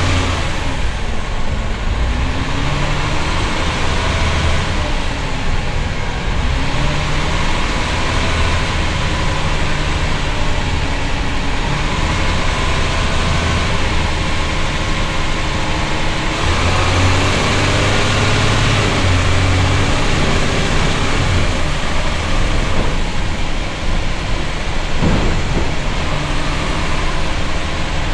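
Cummins L10 turbocharged six-cylinder diesel of a Leyland Tiger bus heard onboard while driving, with the ZF automatic gearbox. The engine note rises and falls in pitch several times, over a steady rumble of road and body noise.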